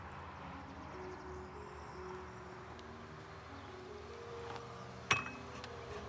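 Soft background music with a slow, held melody, and one sharp metallic clink with a short ring about five seconds in as a metal samovar is set down on its tray.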